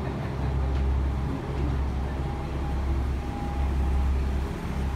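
Steady low hum inside a stopped diesel railcar, its engine idling.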